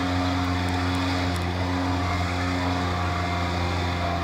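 Outboard motor on a small fishing boat running steadily, a continuous low drone that holds the same pitch throughout.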